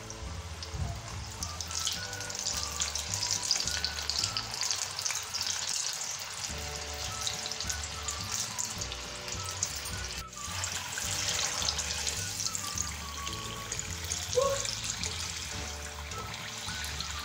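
Cornflour-coated chickpeas deep-frying in hot oil on high heat: a steady, dense crackling sizzle that dips briefly about ten seconds in. Background music with a steady low beat plays underneath.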